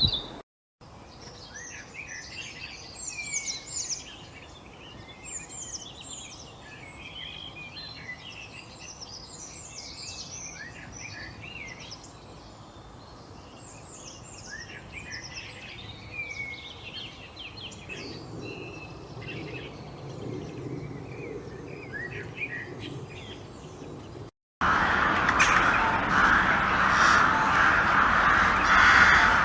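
Many small songbirds chirping and singing together in a busy chorus of short, high notes that glide up and down. About 24 seconds in the birds cut off and a louder, rougher sound takes over.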